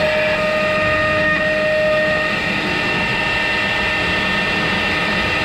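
Avid CNC router's spindle running at speed while its router bit cuts through a wooden board: a steady machine whine over the hiss of the cut, with one of its tones dropping away about two seconds in.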